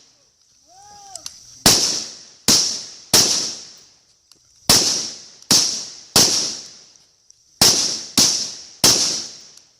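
Rifle shots fired in quick strings: nine shots in three groups of three, each group spaced about two-thirds of a second per shot, every report trailing off in a short echo.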